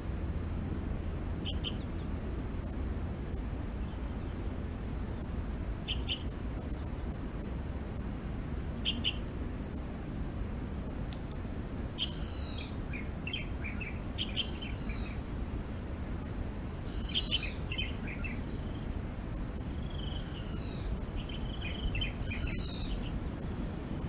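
Forest soundscape: a steady high-pitched insect drone, with a bird giving short chirps every few seconds and, from about halfway, repeated falling whistles mixed with quick chattering notes.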